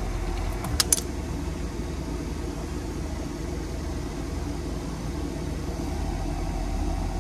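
A few sharp metallic clicks about a second in, from a wrench working the oil pan drain plug loose, over a steady low hum.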